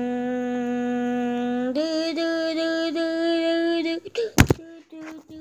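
Humming in two long, steady notes, the second a step higher, then a sharp knock a little after four seconds, then the higher note again in short broken pieces.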